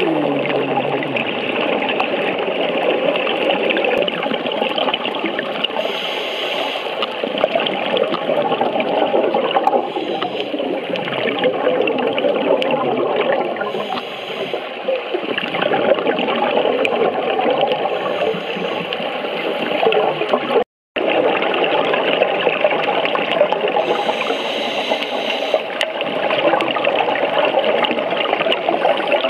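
Scuba divers' exhaled regulator bubbles heard underwater through the camera's housing: a steady bubbling rush, with louder bursts of exhaled bubbles every few seconds. The sound drops out completely for a moment about 21 seconds in.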